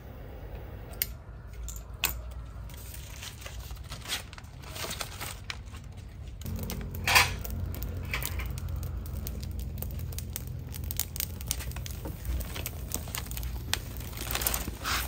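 Food-preparation handling noises: rustling and crinkling with scattered light clicks and knocks, and one louder knock about seven seconds in, over a low steady hum.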